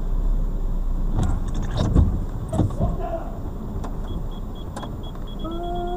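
Inside a car's cabin in the rain: a steady low rumble and hiss with a few sharp knocks. From about four seconds in a high electronic beep repeats, coming faster near the end, and a voice calls out in one drawn-out note just before the end.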